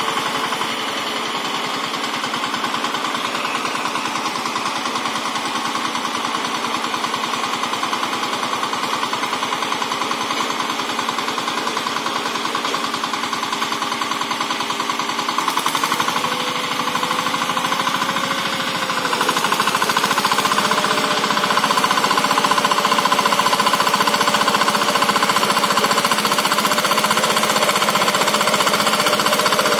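A walk-behind power tiller's single-cylinder diesel engine running steadily with a rapid, even beat while the tiller works the soil. Its pitch lifts slightly a little past halfway, and it grows louder soon after.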